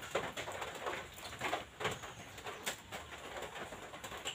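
Knife scraping the scales off small dried fish in short scratchy strokes, several in a few seconds, with birds calling in the background.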